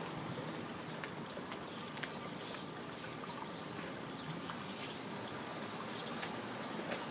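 Steady trickling water, with a few light clicks and brief faint high chirps.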